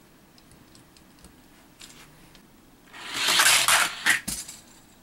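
Hot Wheels Extreme Shoxx toy truck, its suspension set a little tighter, running down the orange plastic track and through the plastic loop. This makes a rushing clatter for over a second about three seconds in, ending in a sharp knock, with a few faint clicks before it.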